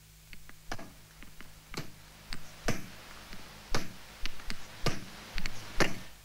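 Electronic clicks and ticks from a Mixtur-Trautonium score: sharp strikes at irregular spacing, one or two a second, some with a short downward-sliding ring, growing louder toward the end.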